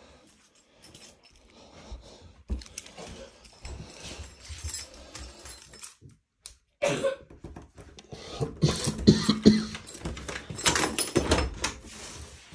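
Irregular knocks, rustles and clatter from someone moving through a house with a phone in hand, busiest and loudest near the end.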